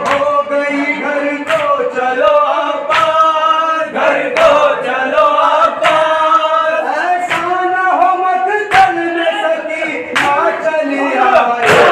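Men's voices chanting a noha, a Shia lament, in unison, with hand matam: chest-beating slaps struck together in a steady beat about every one and a half seconds.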